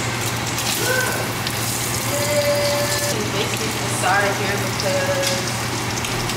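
Bacon sizzling steadily in a skillet over a gas burner.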